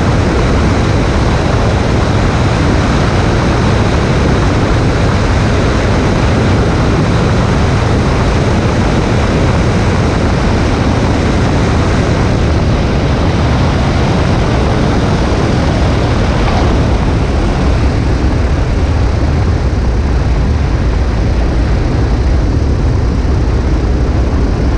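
Light airplane on landing: a loud, steady rush of engine, propeller and airflow, heaviest in the low end. The higher part of the rush thins a little in the last third as the plane slows on the runway.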